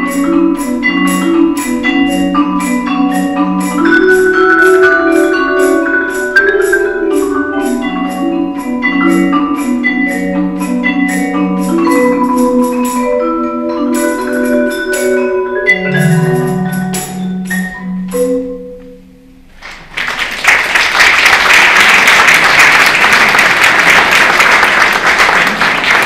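Mallet percussion ensemble of marimba and vibraphone playing a quick run of struck notes. The piece closes on a long low note, and after a brief gap, about twenty seconds in, the audience breaks into applause.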